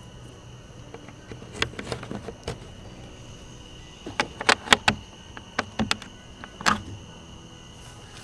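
A steady high insect drone, with a series of sharp knocks and taps coming in small clusters, loudest about halfway through.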